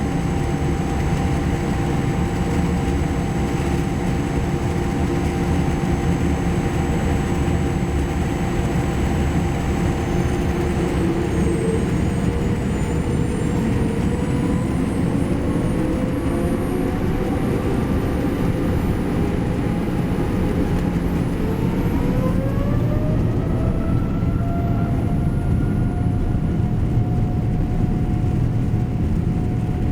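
Boeing 787 Dreamliner's Rolls-Royce Trent 1000 jet engines spooling up for takeoff: a steady rumble, with engine whine tones that rise in pitch over about twelve seconds partway through and then hold steady at takeoff thrust.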